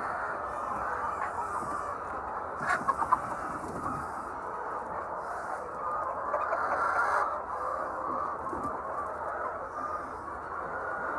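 A large flock of egg-laying chickens clucking continuously in a crowded din. A few louder, sharper calls stand out about three seconds in, and the din swells again around six to seven seconds.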